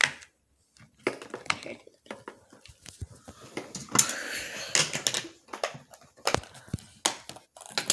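Silicone push-pop fidget toys being pressed and handled: a run of short sharp pops and clicks, with a stretch of rustling about four seconds in.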